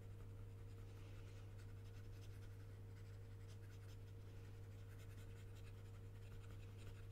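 Faint, irregular scratching of a pen stylus stroking across a graphics tablet, over a steady low hum.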